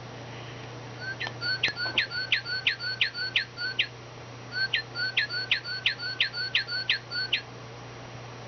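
A bird calling in two runs of quick, repeated whistled notes, each note sweeping sharply down in pitch, about three notes a second, with a short pause between the runs.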